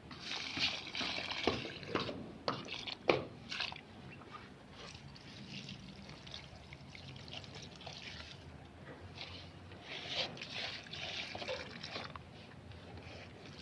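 Water poured onto potted plants, splashing and trickling in several spells, with a few sharp knocks in the first few seconds.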